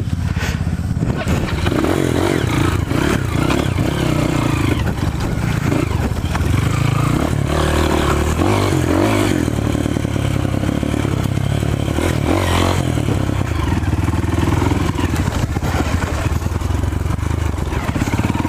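Off-road motorcycle engine running under load on a dirt trail, its revs rising and falling as the rider works through the terrain.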